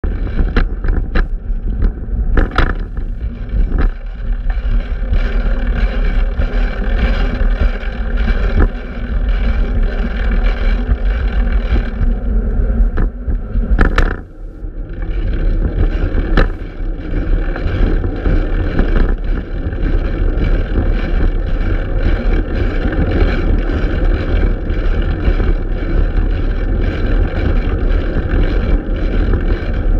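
Steady rumble of wind and road noise from a fixed-gear bicycle in motion, with a few sharp knocks and a brief drop in level about halfway through.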